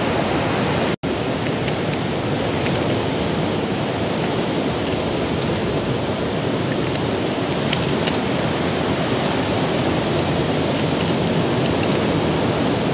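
Steady rushing noise of sea surf breaking on the shore, with a few faint ticks over it; the sound cuts out for an instant about a second in.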